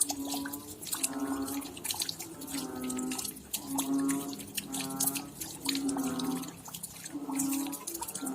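Raindrops falling and dripping at night, a dense patter of small ticks. Under it, a low, pitched call repeats about once a second.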